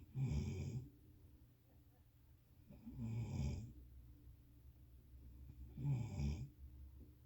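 Loud snoring: three snores about three seconds apart, each lasting under a second, with quiet breathing between.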